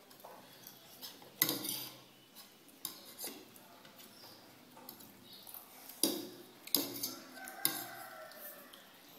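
Metal forks clinking and scraping on plates while eating noodles: several sharp clinks a second or two apart.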